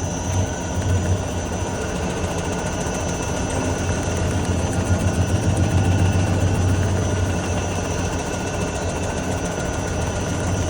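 Suspension vibration test stand shaking a Volkswagen Touareg's wheels: a steady low hum with rapid knocking from the new anti-roll bar bushings, which are the wrong size, on a stabilizer bar worn where they sit. The knocking gets louder and more pronounced about halfway through.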